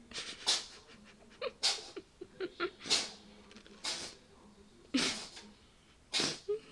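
A cat with hay fever sneezing repeatedly: about six short, sharp sneezes, roughly one a second.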